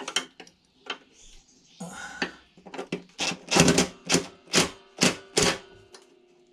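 DeWalt 18V cordless driver run in short trigger bursts on rusted axle bolts of a lawnmower deck, a series of brief loud rattling bursts that come about two or three a second in the second half.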